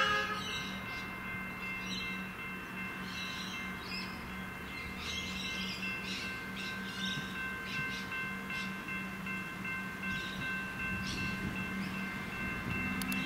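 Comeng electric train approaching slowly: a steady low hum with several faint, steady high-pitched tones over it. Birds chirp now and then.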